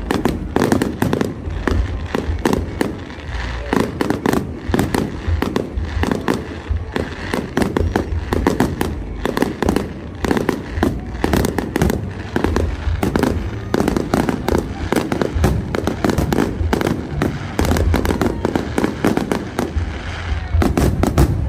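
Fireworks going off in quick succession: a dense, unbroken run of bangs, pops and crackles, many a second.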